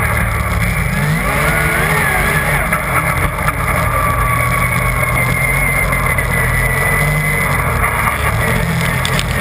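Yamaha Nytro RTX SE snowmobile's four-stroke three-cylinder engine running at trail speed, heard close from the rear bumper with track and snow noise. Its pitch climbs about a second in, and a high whine runs along with it through the middle.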